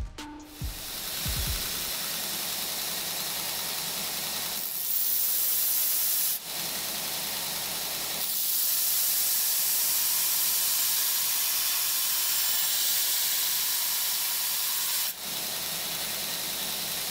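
Belt grinder with a steel knife blank pressed against the running abrasive belt, grinding the blade's profile: a steady, loud grinding hiss. It grows louder about five seconds in and again a few seconds later, dips briefly twice, and cuts off sharply at the end.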